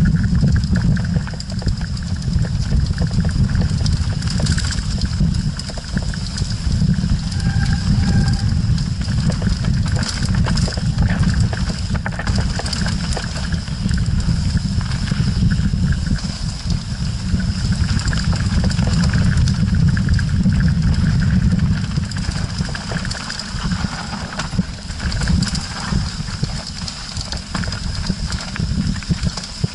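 Ride noise from an action camera on a Canyon Strive enduro mountain bike descending a rough dirt singletrack: a constant low wind-and-vibration rumble with dense rattling clicks and knocks from the bike over stones and ruts.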